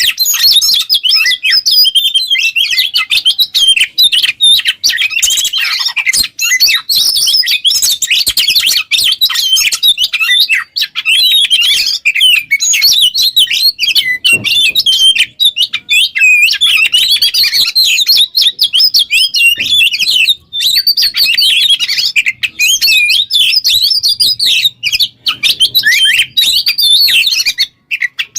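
Oriental magpie-robin (kacer) singing a loud, continuous, rapidly varied song of high whistles and chirps with barely a pause, the full 'gacor' song used for training other birds.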